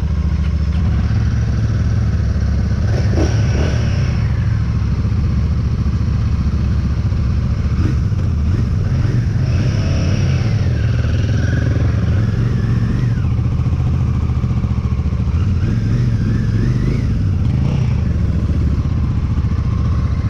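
Royal Enfield Shotgun 650's parallel-twin engine running steadily, with the throttle easing and picking up a few times.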